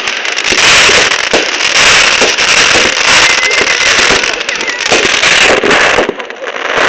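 Fireworks going off in a dense, loud barrage of rapid crackling bangs, easing off briefly near the end.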